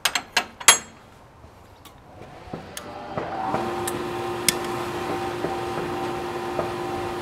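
Gas forge being lit with a handheld gas torch. A few metal clinks near the start, then a hiss of gas rises from about two seconds in and settles into a steady roar with a low hum, with a few sharp clicks over it.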